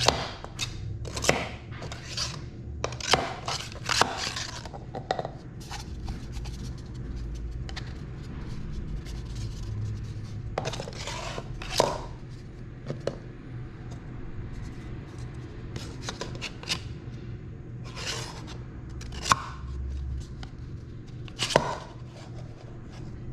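Plastic office-chair parts being handled and fitted together: irregular clicks, knocks and scrapes, with a few sharper knocks in the second half, over a low steady hum.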